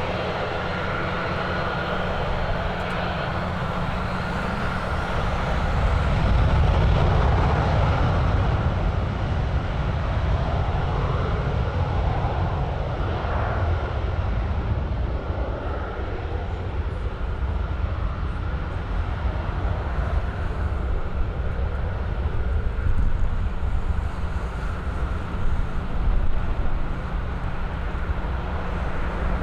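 Aircraft engine noise: a steady low rumble that grows louder about six seconds in and then eases a little. A faint wavering whine rides above it for several seconds.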